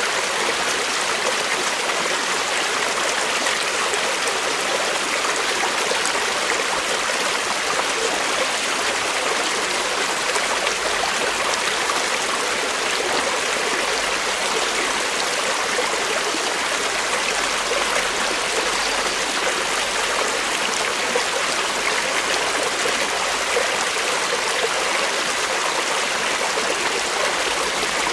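Creek water flowing and rippling steadily, a constant rushing splash.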